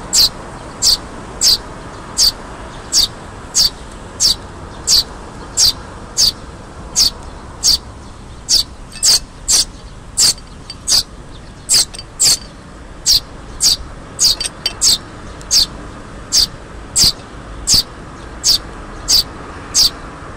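Fledgling Eurasian tree sparrow begging to be fed, repeating a short high chirp about one and a half times a second, with a brief flurry of extra chirps about two-thirds of the way through.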